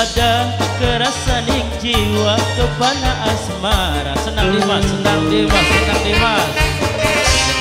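Loud live dangdut band music: a steady drum-and-bass beat under a melody line that bends up and down in pitch.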